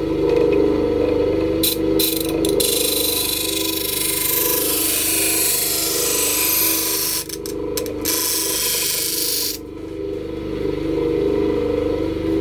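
Soviet IE-9701 bench grinder motor running with a steady hum while a kitchen knife blade is ground against its abrasive wheel. A loud hissing grind starts about two seconds in, breaks off briefly twice as the blade is lifted, and stops about ten seconds in.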